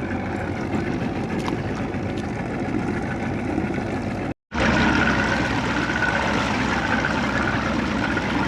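Boat motor running steadily with water sloshing and trickling, cut off for an instant about four and a half seconds in; after the break a faint steady whine runs under the noise.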